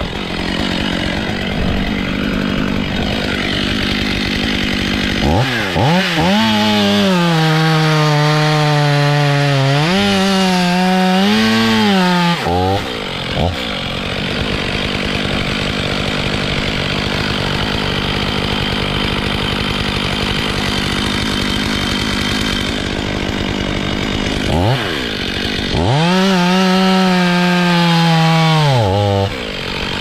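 Petrol top-handle chainsaw running close by. It is revved up to full speed twice: from about five seconds in for some seven seconds, and again for about three seconds near the end. In between it runs at a lower, rougher speed.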